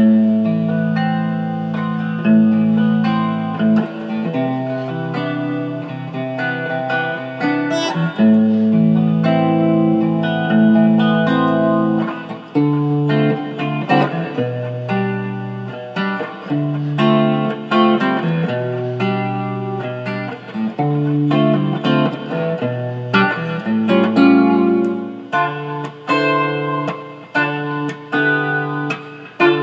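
A 1965 Fender Mustang electric guitar playing a looped chord progression in sustained, ringing chords that change every second or two.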